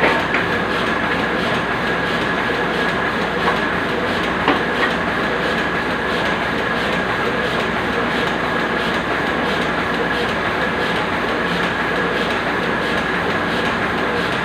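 A QZ201 semi-manual cutting machine running steadily with a constant high whine over an even mechanical hum. A few short clicks come in the first five seconds.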